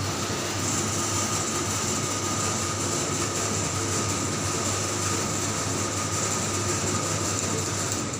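Lahore Orange Line electric metro train running: a steady rush of running noise with a thin, high whine held over it.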